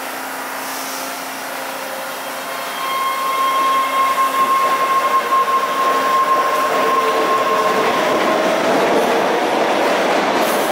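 MBTA Red Line subway train pulling out of an underground station. A steady hum while it stands gives way, about three seconds in, to a louder rush of wheels on rail, with a steady motor tone and lower tones that slowly rise in pitch as the train gathers speed.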